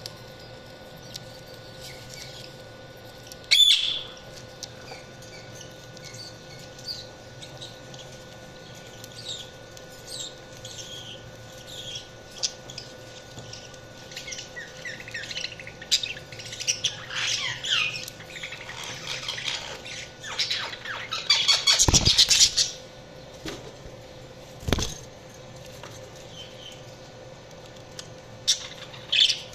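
Budgerigars chirping and chattering in short high calls, with a loud squawk about three and a half seconds in. The chatter grows busier toward the middle and peaks in a loud burst around twenty-two seconds, over a faint steady hum.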